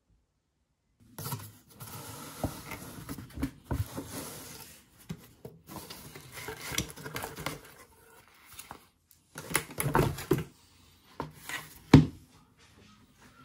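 Hands handling cookie packaging and treats: rustling, scraping and light knocks starting about a second in, with a sharp knock near the end.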